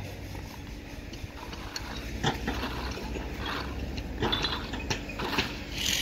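Hand trowels scraping and patting wet concrete: a string of short, irregular scrapes over a low steady rumble.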